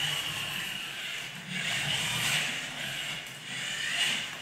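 Two geared DC motors of a self-balancing robot whining as it drives and turns. The whine swells and eases a few times as the motors speed up and slow down.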